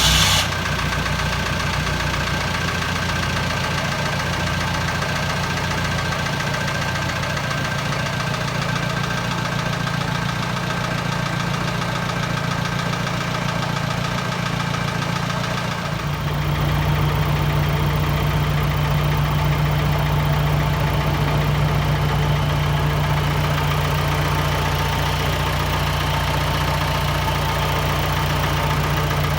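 Modified Willys-style Landi jeep's engine idling through its exhaust, freshly started and running steadily. About halfway through, the idle note gets a little louder and fuller.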